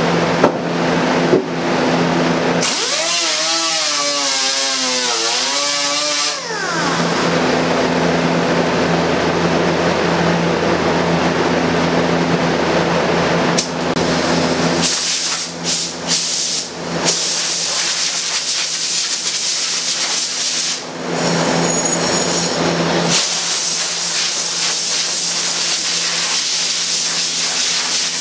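Hand-held air-powered grinder running on a fiberglass and wood boat seat base. Its pitch sags and recovers as it is pressed into the work a few seconds in, and it stops and restarts briefly a few times around the middle.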